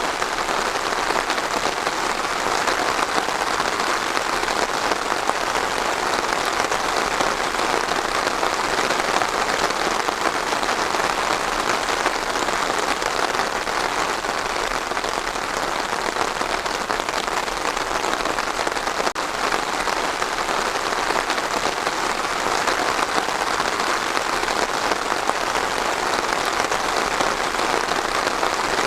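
Steady rain falling on a surface, an even, unbroken patter of many small drops.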